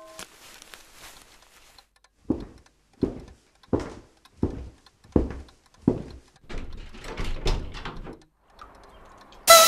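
The last ring of a doorbell chime dies away, then footsteps cross a hard floor: six even steps about two-thirds of a second apart, followed by quicker, softer steps as they reach the door.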